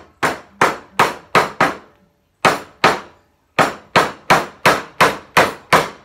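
A mallet striking a mortise chisel, chopping waste out of the socket of a corner bridle joint in timber. About fourteen sharp blows come in three runs with short pauses between them, and the last run is a steady beat of about three a second.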